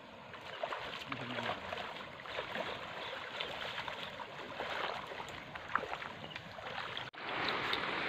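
Shallow river water rushing and splashing as people wade through the current dragging a hand-held fishing net, a steady watery hiss with small splashes scattered through it.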